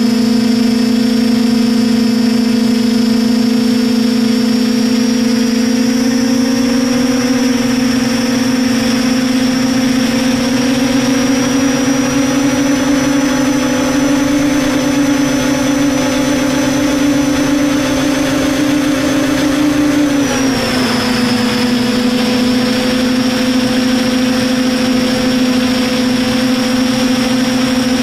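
DJI F450 quadcopter's brushless motors and propellers humming steadily, heard from the camera mounted on the frame. The pitch creeps up slowly and then drops quickly about twenty seconds in, holding lower to the end.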